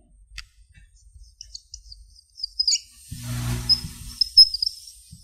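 Dry-erase marker squeaking on a whiteboard in short, high chirps as characters are written stroke by stroke. A brief low hum comes about three seconds in.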